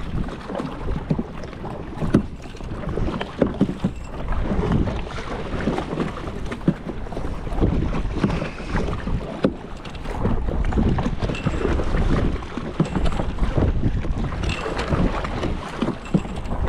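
Kayak paddling: paddle blades dipping and splashing in the water in an irregular run of splashes, with wind buffeting the microphone.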